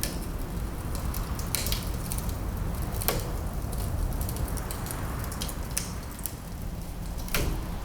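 Wood fire crackling, with a handful of sharp pops, the loudest about three seconds in and near the end, over a low steady rumble of wind.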